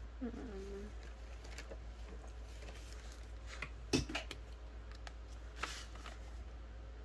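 Quiet handling of a paper sheet on a tabletop, rustling as it is slid, with a few light taps and clicks, the sharpest about four seconds in, as a marker is taken up to colour it in.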